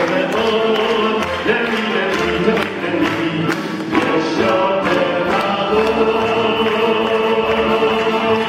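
Symphony orchestra playing, the strings bowing long held chords in the second half.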